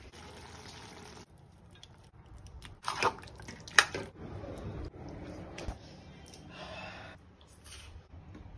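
Steel ladle stirring thick curry in a stainless-steel kadai: quiet wet stirring with two sharp metal clinks of the ladle against the pan, about three and four seconds in.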